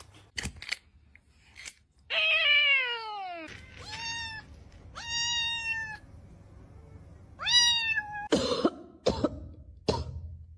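A domestic cat meowing four times, the first call long and falling in pitch, with several short sharp bursts of noise near the start and again near the end.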